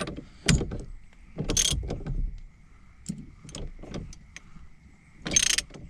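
Scattered clicks and knocks of a steering wheel and its retaining nut being handled and fitted onto a car's steering column, with a short scrape about a second and a half in and a louder one near the end. The nut will not thread on properly. A faint steady high whine runs underneath.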